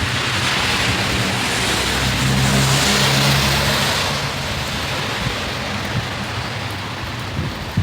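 A car passing on a rain-soaked road: the hiss of its tyres through the water swells to a peak about three seconds in and fades, with a low engine hum under it, while rain keeps falling.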